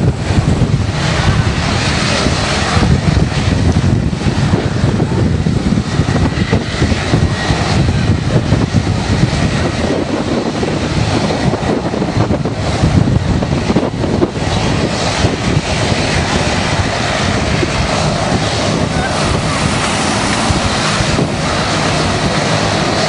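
Twin-engine jet airliner's engines at takeoff thrust: a loud, steady rushing roar, with wind buffeting the microphone.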